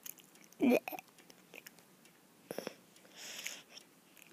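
Quiet mouth and breath sounds from a child held close to a phone microphone: a short hum-like vocal sound about a second in, a breathy hiss past the middle, and a few faint clicks.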